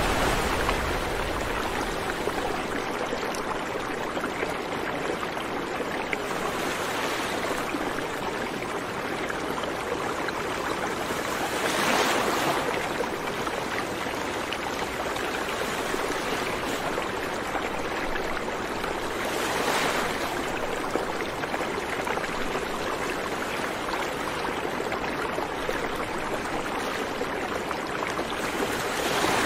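Steady rushing noise like flowing water, with no tone or beat in it, swelling briefly about 12 seconds in and again near 20 seconds.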